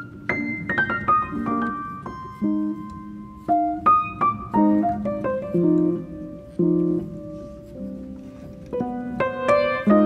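Background piano music: soft notes and chords, each fading after it is struck, with a short falling run of notes about a second in.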